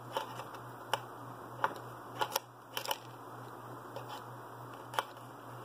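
Short, sharp clicks and taps of a small metal hand tool against the workbench as it picks among LEDs and bits of solder: about eight, some in quick pairs, over a steady low hum.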